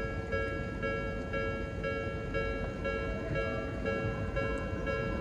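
Japanese railway level crossing warning bell ringing at about two strikes a second, with a second bell tone joining about three seconds in, over a low rumble.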